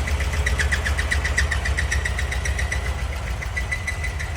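ZAZ Zaporozhets idling with a loud, rhythmic squeak of unknown origin, about six or seven chirps a second, running in time with the engine. Near the end the chirps run together into an almost steady squeal.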